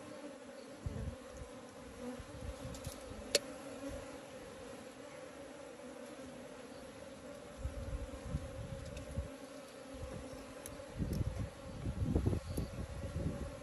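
Honeybees buzzing around the hive, a steady hum. Low rumbling thumps on the microphone come and go in the second half, with a single sharp click a little over 3 seconds in.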